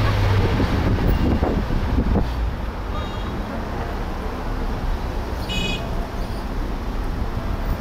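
Steady road and engine rumble with wind noise from a car driving in city traffic. Two brief high-pitched chirps stand out, about three seconds in and again about five and a half seconds in.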